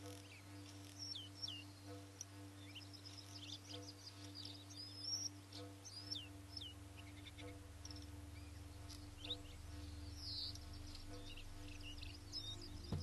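Quiet background music, a low sustained drone with a soft pulse about every two seconds. Small birds chirp high above it throughout.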